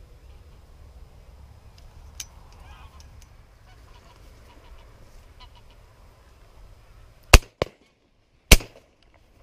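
Geese honking faintly overhead, then two loud shotgun shots about a second apart near the end: both barrels of a Browning B25 over-and-under shotgun fired at the flock. A fainter crack follows just after the first shot.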